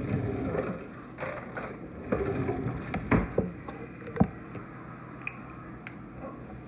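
Kitchen handling noises: rustling and a few sharp clicks and knocks of containers and utensils being picked up and set down.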